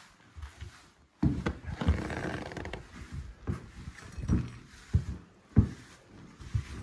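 Broom sweeping snow and grit across a hut floor: scratchy scraping from about a second in, followed by several short knocks, the loudest late on.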